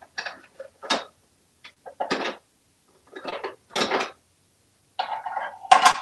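An African grey parrot knocking and shoving plastic toy blocks about on a countertop: a string of short clattering knocks and rattles, the loudest near the end.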